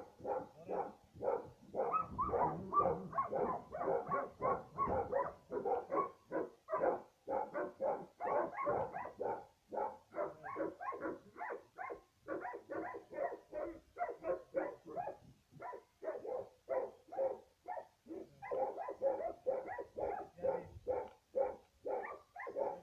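A dog barking over and over in a fast, steady run, about three barks a second, without a break.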